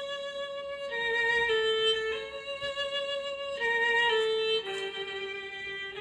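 Background music: a slow violin melody of long held notes, moving to a new note every second or so.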